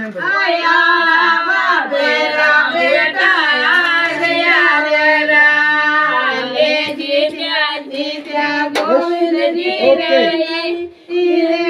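Voices singing a Marwari wedding folk song together, the melody gliding over a steady held note, with a brief break near the end.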